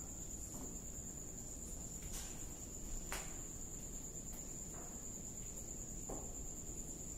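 Crickets trilling as one steady, high, unbroken tone, with a few faint taps or knocks about two and three seconds in.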